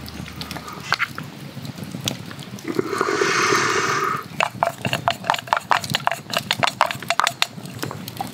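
Wet cooking sounds from a pot of ramen as chashu slices are laid on with wooden chopsticks: scattered clicks and drips, a short hissing rush about three seconds in, then a quick run of clicks.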